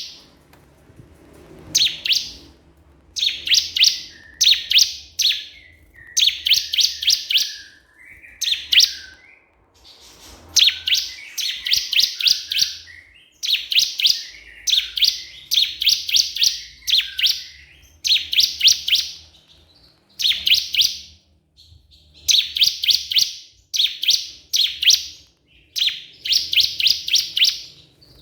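Ciblek kristal prinia singing continuously in its challenge call: phrases of rapid, sharp repeated notes, each about a second long, one after another with short pauses.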